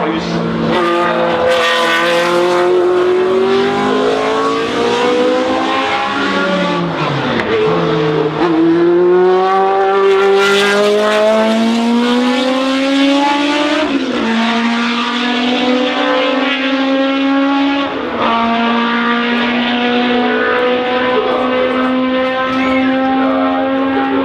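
Historic racing car engine running hard under acceleration, its note climbing steadily through the revs. About seven seconds in the revs fall away briefly before climbing again, and later the pitch drops sharply twice at upshifts and climbs again each time.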